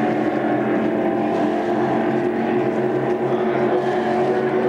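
Motorboat engine running steadily at a constant pitch.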